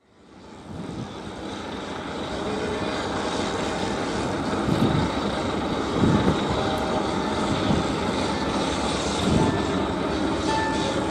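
Steady drone of ship engines from tugboats and a departing RORO ship, fading in over the first couple of seconds, with a few brief low surges.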